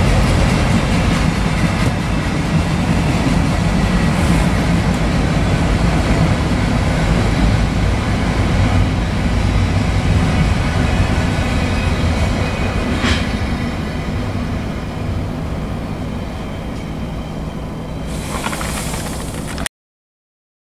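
Autorack freight cars rolling past at speed: a steady loud rumble of steel wheels on the rails, with a brief sharp sound about thirteen seconds in. The rumble eases slightly toward the end, then cuts off suddenly.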